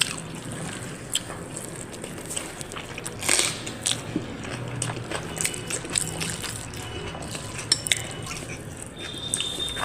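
Close-up chewing and wet mouth clicks of someone eating rice and curry by hand, with scattered smacks and one louder smack a few seconds in.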